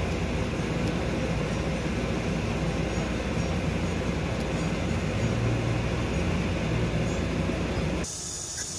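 Steady mechanical hum with an even rushing noise, like a running air conditioner or fan, unchanging in level; near the end it cuts off abruptly to a quieter hiss.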